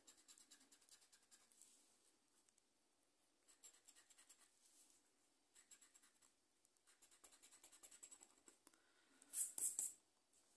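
Metal scraper tool scratching the coating off a lottery scratch card: faint runs of quick, fine scraping strokes in short bursts, with louder scratching near the end.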